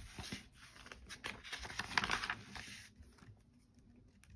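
Paper rustling as the pages of a thin paperback picture book are turned and flattened by hand. It comes as a run of soft rustles and light taps, busiest about two seconds in, and dies away about three seconds in.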